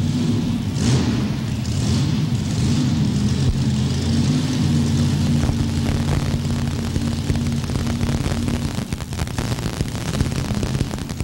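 Mini rod pulling tractor's engine running steadily at idle after being refired.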